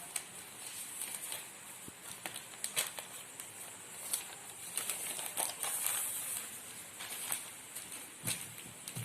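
Scattered light clicks and rustles of a smartphone's retail box and packaging being handled and opened, over a steady faint hiss.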